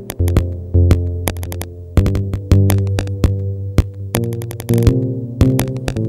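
Electronic background music: a drum-machine beat of sharp, rapid clicks over held synthesizer notes with a steady low bass.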